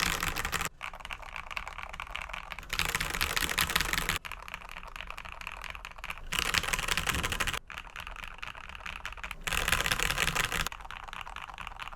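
Typing on an RK87 mechanical keyboard with lubed stock red linear switches, lubed stabilizers, PBT keycaps and foam and tape mods. Four louder, denser stretches of keystrokes alternate with lighter, sparser typing.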